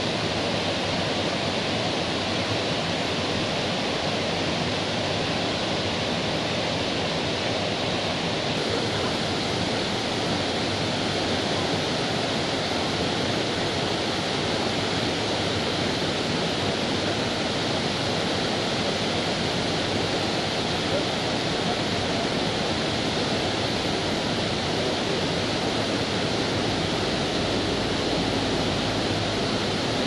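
The Rhine Falls, Europe's largest waterfall, rushing steadily: a dense, unbroken noise of the river pouring over the falls and churning through the rapids.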